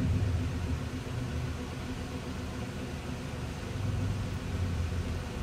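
Steady low rumble and hum with a faint even hiss, swelling slightly about four seconds in.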